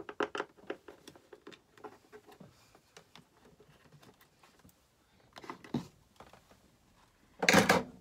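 Screwdriver working screws out of a small plastic mounting bracket on a wooden caravan locker panel: quick clicks and scratches of tool on screw and plastic, with a louder scraping handling noise near the end.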